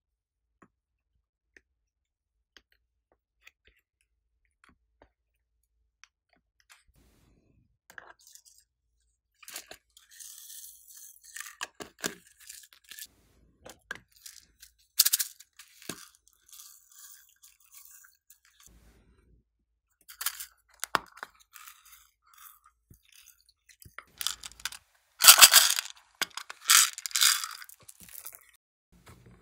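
Small plastic pieces and beads handled and poured into a glass tray: faint scattered clicks at first, then a crackly rattling and rustling that comes in bursts, loudest for a few seconds near the end.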